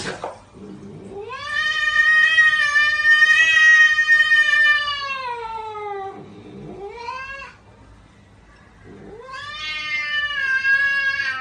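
Silver tabby cat yowling in three drawn-out calls: a long one of about five seconds that falls in pitch at its end, a short rising one, then another long one near the end.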